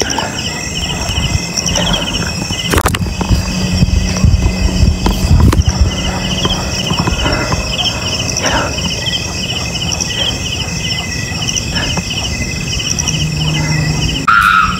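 Crickets or other night insects chirping in a steady, pulsing trill, over the irregular thumps and rustle of footsteps through grass. A brief high squeak comes near the end.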